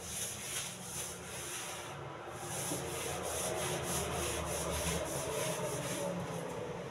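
Long-handled scrubbing brush rubbing over wet floor tiles soaked with detergent powder and bleach, in quick, even back-and-forth strokes, with a short break about two seconds in. The scrubbing is to lift black water stains from the tiles.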